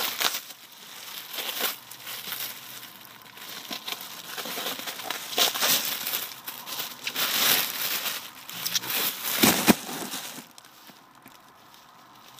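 Plastic bubble wrap and packing crinkling and rustling in irregular bursts as someone rummages through a box. It stops about ten seconds in.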